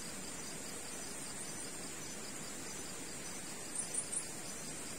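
Night insect chorus of crickets: a steady high-pitched trill with a faster pulsing chirp beneath it, and three short, louder high chirps in quick succession about four seconds in.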